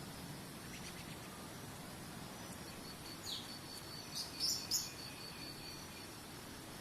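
A bird chirping: one falling chirp about three seconds in, then a quick burst of louder chirps a second later. Under it runs a steady high insect trill that stops near the end, over a soft even background hiss.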